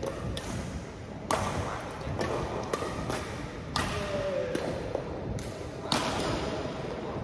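Badminton rackets striking a shuttlecock in a rally: a string of sharp hits, roughly half a second to a second apart, echoing in a large sports hall.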